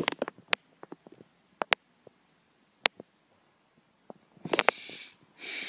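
Plastic DVD case being handled: scattered sharp clicks and taps, then about four and a half seconds in a quick cluster of clicks with a short rustle.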